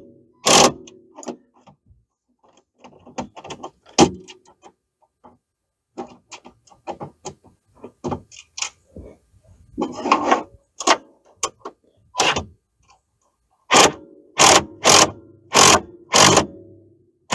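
Bolts being tightened with hand and cordless tools: scattered light ratchet clicks, one sharper click about four seconds in, then several short whirring bursts from a cordless power tool, about five in quick succession near the end.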